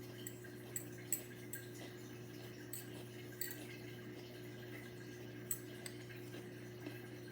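Dishwasher running with a steady low hum and a faint watery trickle, with a few small scattered clicks and ticks.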